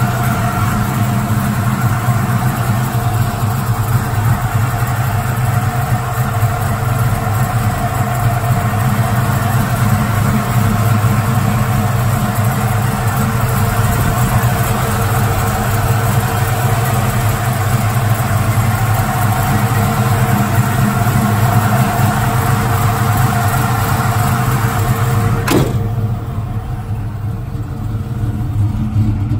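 Chevrolet V8 of a 1970 Chevelle SS idling steadily, with no revving. Near the end there is a sharp click, and the engine sound turns duller.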